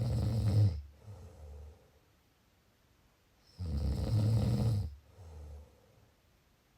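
Snoring in two loud rattling breaths about three and a half seconds apart, each followed by a softer, shorter breath.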